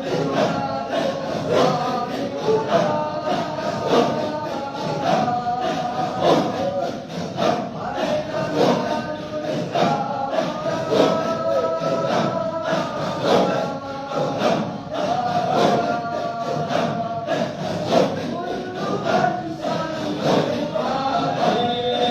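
A group of voices chanting together in unison, with held, melodic lines over a steady percussive beat of about two strokes a second, in the manner of devotional dhikr chanting.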